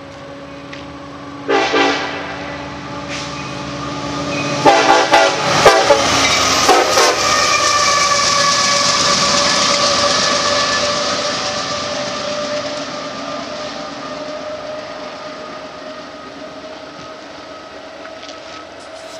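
Union Pacific diesel locomotives running light and drawing away, their engines rumbling. The horn gives a short blast about one and a half seconds in and several short blasts around five seconds in, then a long blast that slowly fades.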